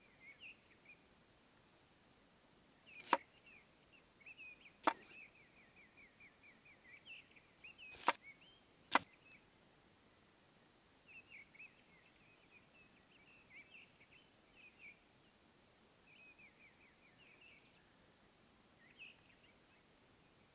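A large kitchen knife striking a wooden cutting board four times while cutting garlic cloves: sharp knocks about 3, 5, 8 and 9 seconds in. Small birds chirp and trill faintly throughout.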